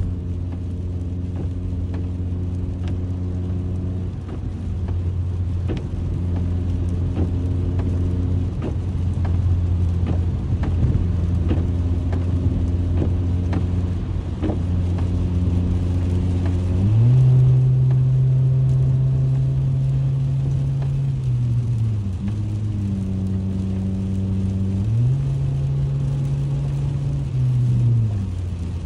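Honda Accord driving on a wet highway, heard from inside the cabin: a steady engine drone over tyre and rain noise. The engine note jumps higher about seventeen seconds in and holds for a few seconds before dropping back, then rises and falls again near the end.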